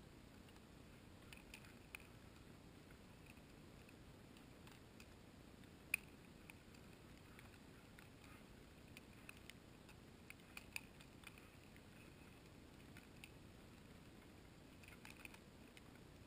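Near silence: a faint steady hiss with scattered small clicks, the sharpest about six seconds in and a few clustered near the middle and end.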